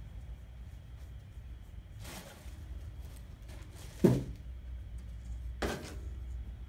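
A wooden craft board being handled on a paper-covered table: a single dull thump about four seconds in as it is set down, with brief rustles shortly before and after, over a low steady hum.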